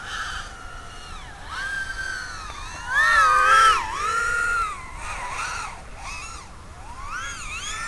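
Racing quadcopter's brushless motors whining over a steady hiss, the pitch sweeping up and down in repeated glides as the throttle is worked, loudest a few seconds in.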